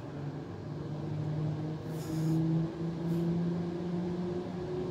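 Steady mechanical hum of the cable car's drive machinery and haul rope running as the cabins travel. The pitch shifts a little, and two brief hisses come about two and three seconds in.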